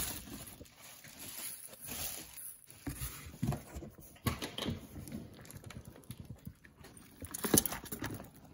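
Bubble wrap and cardboard box flaps being handled as a packed box is unpacked: irregular crinkling, rustling and light clicks, with a louder rustle about seven and a half seconds in.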